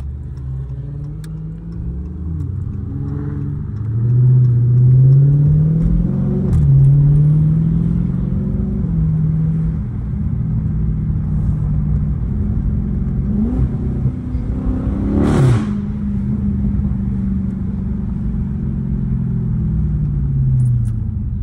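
Dodge Charger's engine heard from inside the cabin, revving up through the gears with a shift about six and a half seconds in, then easing off as the car slows near the end. A brief rushing hiss cuts in about two-thirds of the way through.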